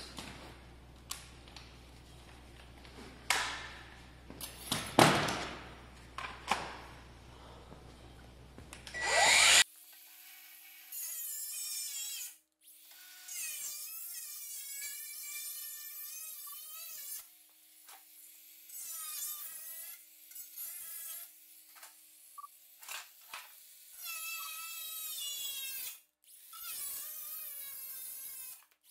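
A few knocks and one loud clank of metal being handled. Then, about a third of the way in, a handheld power tool starts running in spurts as it cuts the old Jeep fender. Its pitch wavers up and down as it bites, with short pauses between runs.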